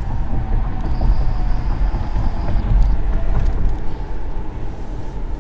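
Road and engine noise of a car driving in traffic, heard from inside the moving car: a steady low rumble.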